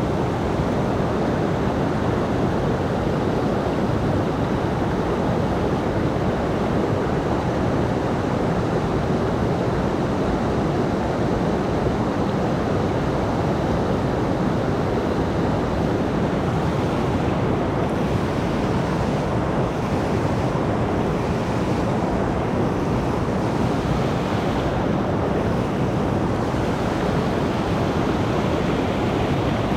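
Rain-swollen mountain stream rushing steadily.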